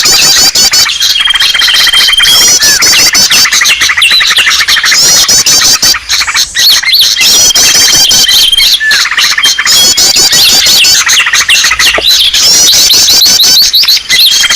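Bird-lure recording of many small birds calling at once: a dense, loud mass of rapid chirps and trills with a held high whistle, the same passage repeating about every six seconds as a loop.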